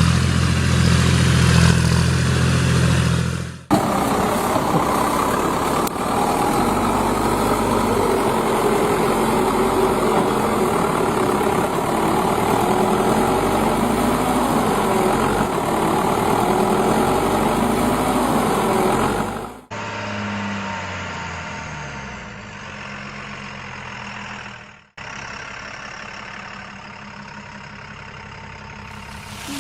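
Heavy diesel engines of a backhoe loader and tipper trucks running, in several clips cut together. First a steady idle, then a long stretch where the engine note rises and falls repeatedly as the machine works, then quieter, steadier running near the end.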